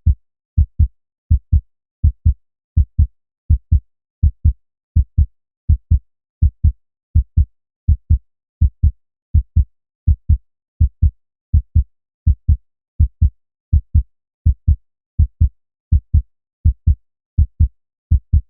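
Human heartbeat: a steady lub-dub, each beat two short low thumps close together, repeating about 80 times a minute with silence between beats.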